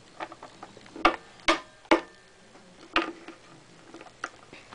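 Small hard plastic toy figure tapped against a tabletop as a hand moves it off, giving a handful of sharp, irregular clicks: three close together, then two more spaced further apart.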